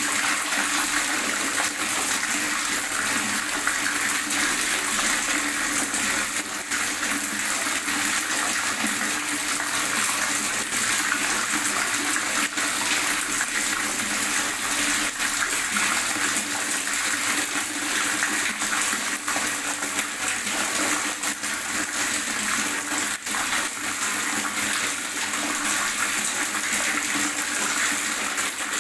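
Water gurgling and splashing steadily, without pause.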